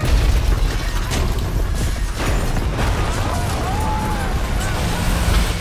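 Film-trailer sound effects: a loud, deep continuous rumble with crashes and knocks through it, under music.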